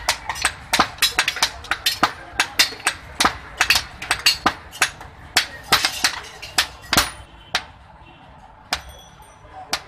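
Hand hammer beating a red-hot iron blade on a small anvil, quick sharp blows about three to four a second. The hammering stops a little after halfway, followed by two single strikes near the end, one with a short metallic ring.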